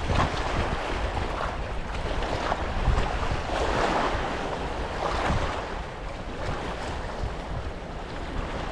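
Wind buffeting the microphone with a low rumble, over small waves washing and splashing onto a rocky shoreline in soft swells every second or two.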